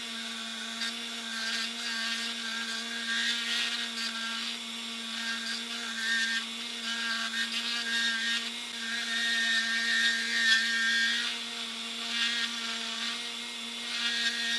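Handheld rotary tool with a side-cutting bit running at a steady high whine while it grinds semi-hardened JB Weld epoxy putty, the rasping of the cut rising and falling as the bit bites in.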